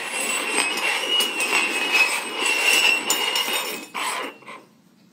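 Four metal cups being slid and shuffled across a tabletop: a dense scraping with small clinks and a faint ringing from the cups, stopping a little after four seconds in with two last short scrapes.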